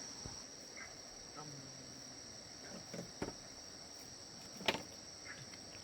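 Steady high-pitched chorus of insects, with a few sharp knocks or clicks over it, the loudest about three-quarters of the way through.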